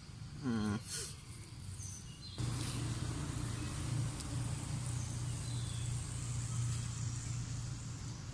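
A short, rising, wavering call about half a second in. Then a steady low engine hum starts abruptly a couple of seconds in and carries on, with faint bird chirps over it.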